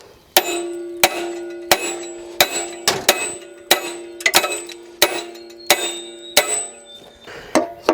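Copper hammer striking the rusted-in locking rings of a Masport 5 hp wood chipper: about ten sharp blows, one roughly every two-thirds of a second, each leaving the metal ringing with a clear tone. Two lighter taps come near the end.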